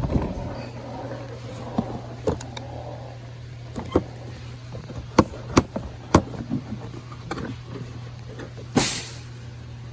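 Plastic dashboard trim being pried loose and handled: scattered sharp clicks and knocks, and one longer scrape near the end, over a steady low hum.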